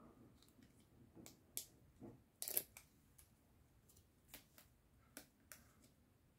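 Faint, scattered crinkles and ticks of paper and thin plastic being handled: the protective film being peeled off foam tape on a die-cut paper piece. The loudest crinkle comes about two and a half seconds in.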